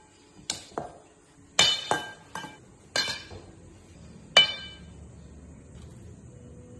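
Wire whisk and small cups clinking against a mixing bowl while pancake batter is being mixed: about seven sharp ringing clinks in the first four and a half seconds, the loudest near the end of them.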